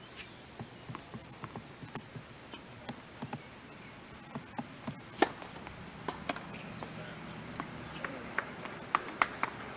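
Tennis ball being hit by rackets and bouncing on a hard court: a run of short, sharp knocks, the loudest about five seconds in and a quick cluster near the end.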